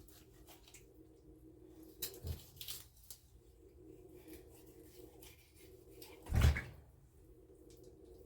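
Kitchen handling noises: a few knocks about two seconds in and one louder thump past the middle, over a faint steady hum.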